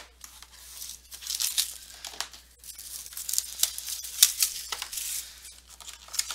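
Foil-wrapped trading card packs crinkling and rustling as they are handled, with quick irregular crackles and rips of wrapper.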